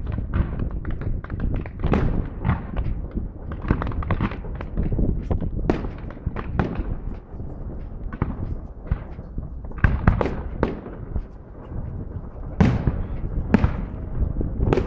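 Aerial firework shells bursting over a distant display in a dense, irregular run of booms and bangs. The sharpest reports come about two seconds in, around ten seconds in, and twice near the end.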